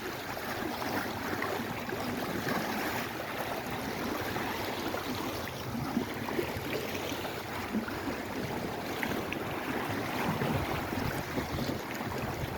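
Small Lake Erie waves lapping, a steady wash of water with many small irregular splashes.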